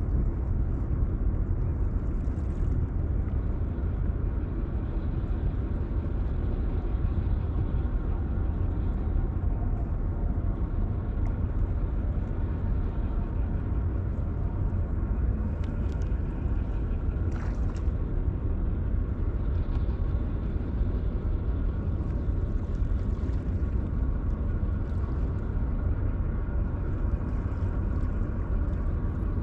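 Steady low rumble of an industrial harbour, with a faint even machinery hum over it and a couple of faint clicks midway.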